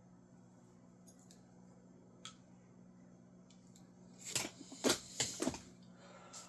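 Rummaging among tools and small parts: a faint click, then a short burst of several quick clattering knocks and rustles about four seconds in, over a low steady hum.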